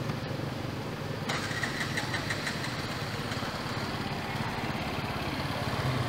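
An engine running steadily in the background, which gets louder and noisier about a second in.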